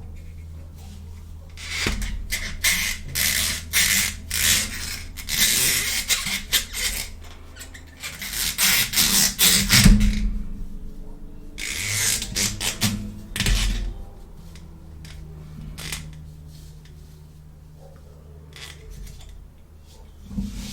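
Toy playset packaging being unboxed by hand: bursts of rustling and scraping, with sharp clicks of small plastic pieces, easing off to occasional clicks about two-thirds of the way through.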